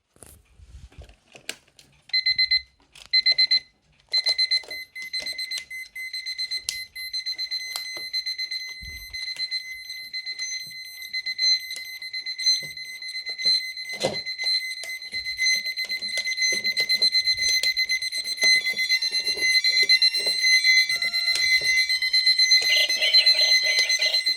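Electronic alarm clock beeping in a high-pitched tone: two short beeps, then continuous rapid beeping. A few handling clicks come before it, and near the end a second alarm with tones that step up and down sounds over it.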